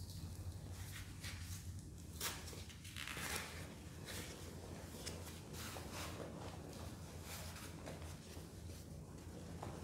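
Baking soda poured in a stream from its cardboard box onto a heap of powder in a metal pan: a soft, uneven hiss with faint grainy crackles.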